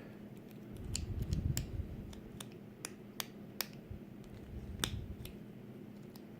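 Small metal lock and tools being handled: a dozen or so light, sharp metallic clicks at irregular spacing, with dull knocks of handling in between.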